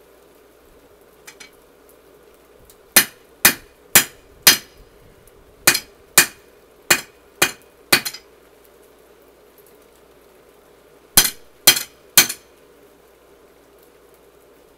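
Hammer blows on a hot steel tomahawk head at an anvil, each a sharp ringing clang, about two a second. They come in three runs: four strikes, then five, then three.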